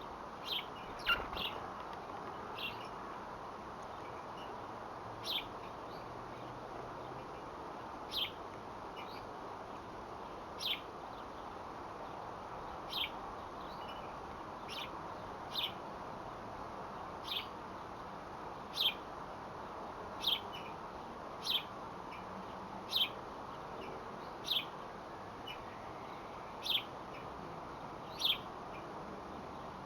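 Small bird giving short, high chirps, one every second or two, over a steady background hiss.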